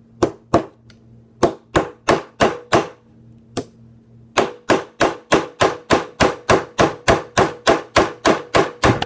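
Small hammer tapping a tight pin into a Smith & Wesson M&P Shield 9mm pistol's frame: a few separate taps, then a steady run of about three sharp taps a second.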